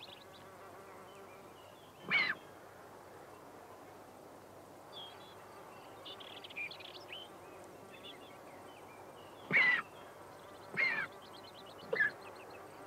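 Griffon vulture chick begging at the nest: a few short cries that bend in pitch, the loudest about two seconds in and again near the end, with faint rapid chittering in between.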